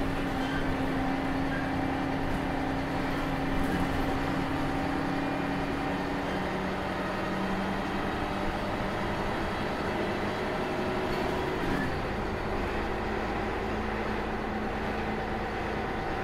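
Ikarus 280 articulated bus's diesel engine and ZF Ecomat automatic gearbox running, heard from inside the bus. The engine note shifts about six seconds in and again about twelve seconds in, where a deeper rumble comes in.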